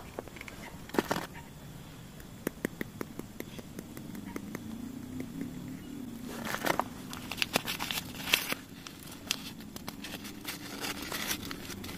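Paper spice packet being handled and crinkled over a pan of raw chicken, with many small clicks and crackles that are busiest in the second half.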